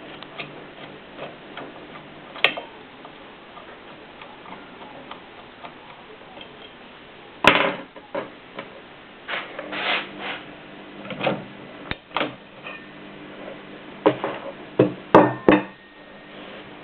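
Mignon index typewriter typing: sharp clacks as the mechanism strikes, spaced irregularly with pauses of a second or more, and a quick run of several strikes near the end.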